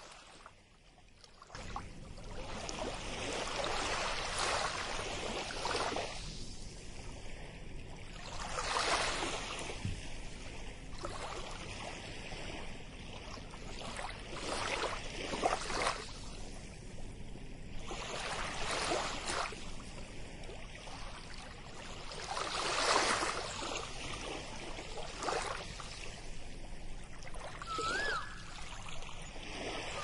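Ocean waves washing onto a beach: a steady rush of surf that swells every few seconds as each wave comes in. A short whistled call sounds near the end.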